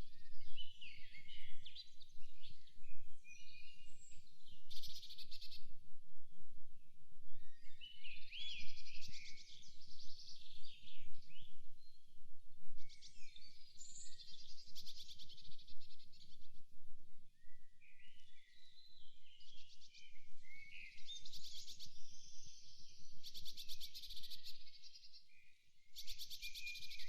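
Several songbirds singing and calling over one another in a forest, with very fast high trills now and then.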